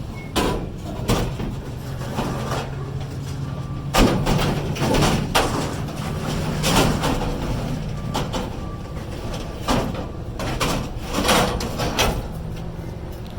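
Pieces of scrap steel being thrown down one after another: a series of irregular metal clanks and bangs with ringing, over a steady low hum.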